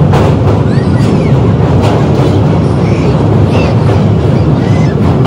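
Indian Railways passenger train running at speed across a river bridge: a loud, steady rumble of wheels on rails, heard from inside the coach.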